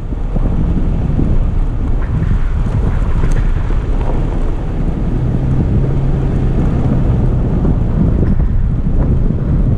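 Toyota FJ Cruiser driving on a gravel road, with wind buffeting the microphone over a steady rumble of tyres and engine; a low engine hum comes up about halfway through.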